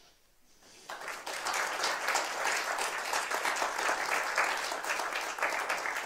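An audience applauding, starting about a second in after a near-silent pause and going on steadily.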